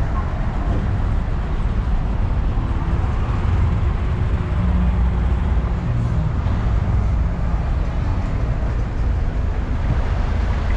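Busy city street traffic: vehicle engines and tyres in a steady low rumble, heard from a moving bicycle.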